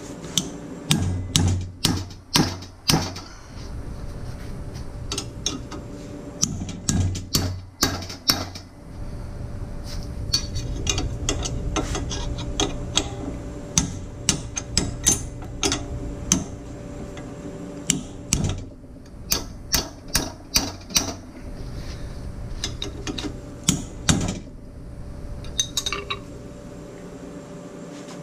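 Bench vise being cranked tight with a wrench to press an oil pickup tube into an oil pump: runs of sharp metallic clicks and creaks, several short runs with pauses between.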